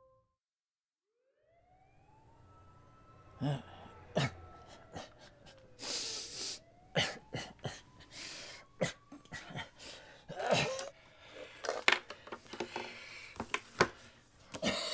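A distant siren wails faintly, rising and falling, while an elderly man coughs and stirs in bed. Sharp clicks and knocks come from things being handled on a nightstand.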